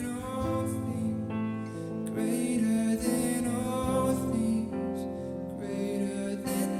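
Slow, gentle worship song: a voice singing over sustained keyboard chords.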